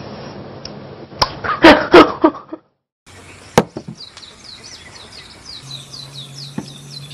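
A woman's loud wordless vocal outbursts for about a second, then after a brief silence a small bird chirping, quick falling notes about four times a second.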